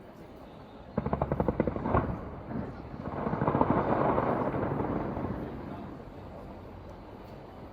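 Fireworks: a rapid string of sharp pops about a second in and a single bang at about two seconds, then a longer crackling rush that swells and fades away over about three seconds.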